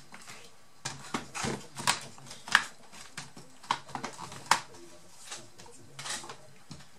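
Irregular plastic clicks and knocks from a Sony Vaio laptop's case being handled, turned over and set down on a work mat, with hands pressing along the bottom cover. The two loudest knocks come about two and a half and four and a half seconds in.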